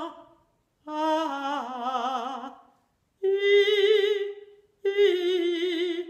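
Operatic soprano singing three sustained 'ah' notes with vibrato, each followed by a short silent gap for breath, as a breath-support (appoggio) exercise. The first note dips slightly in pitch; the second and third sit higher.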